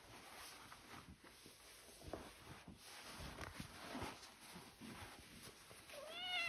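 Faint rustling of denim and clothing as a domestic cat is handled and wrapped in jeans to be held still. Near the end the cat gives one meow that rises and then falls in pitch, protesting at being restrained.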